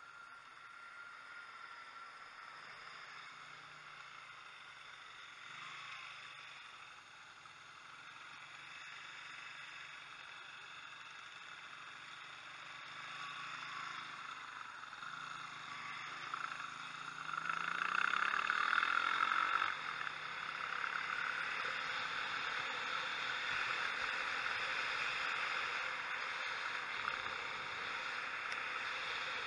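Motorcycle engine idling, then rising in pitch as the bike pulls away about sixteen seconds in, followed by the steady rush of wind and engine while riding.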